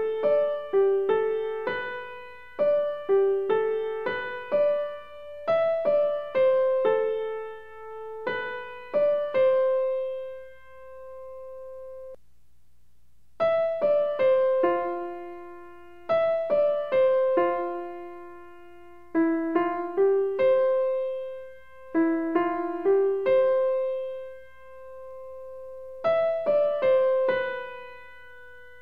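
Background piano music: a slow melody of single notes that each ring and fade, with a short pause about halfway through.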